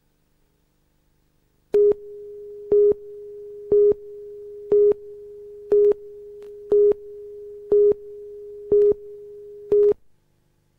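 Broadcast videotape countdown-leader tone: a steady mid-pitched tone with a louder pip about every second. It starts about two seconds in, gives nine pips counting down, and cuts off suddenly near the end.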